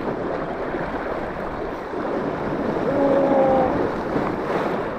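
Waves washing on the reef and wind buffeting the microphone, a steady rushing noise, with a short held tone about three seconds in.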